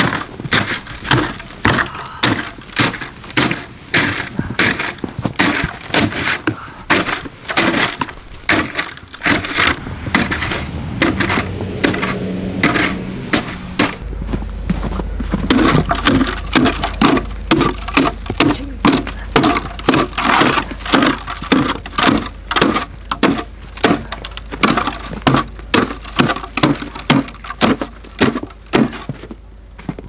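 Snow shovel scraping and chopping packed snow off a Boss XT snowplow blade, in quick repeated strokes.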